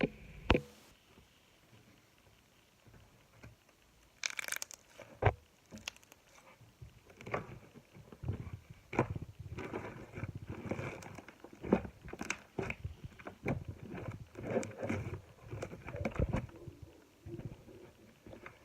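Slime being squeezed and poked by hand, giving irregular sticky pops, clicks and crackles. A few isolated pops at first, then a busy, continuous run of squelching crackles from about seven seconds in.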